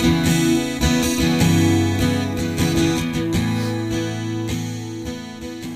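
Live acoustic guitar music, strummed chords ringing out over sustained notes, gradually fading out.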